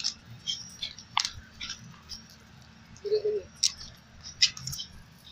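Footsteps scuffing on gritty pavement, short crisp scrapes about twice a second, with a brief squeak about three seconds in.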